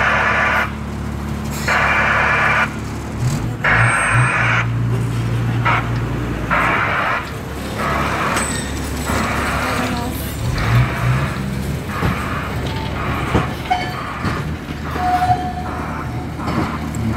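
Botchan Ressha replica steam locomotive pulling away: rhythmic hissing chuffs, slow at first and coming quicker as it gathers speed, over a steady low engine hum. Near the end a few short high squeals come through as it takes the curve.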